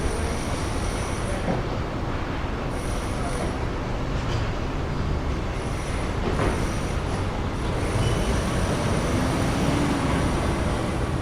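Steady rumble of a vehicle in motion, with high-pitched squeals coming and going over it.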